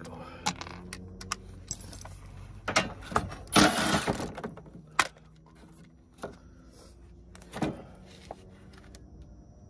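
Hand tools and metal parts being handled: scattered sharp metallic clicks and clanks, with one louder, longer scraping rattle a little past halfway.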